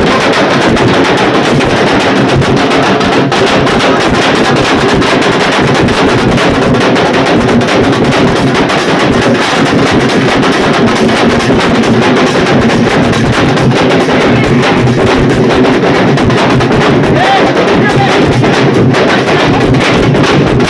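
A dhol troupe drumming loud and fast: several double-headed dhols beaten with sticks together in a dense, unbroken rhythm that never pauses.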